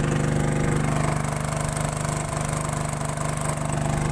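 Motorboat engine running steadily at an even pitch, with the rush of water and wind over the moving boat.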